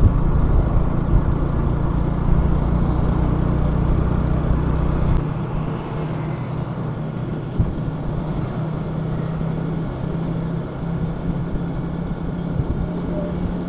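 Steady engine drone and road noise from a motorbike riding in city traffic; the deepest rumble falls away about five seconds in.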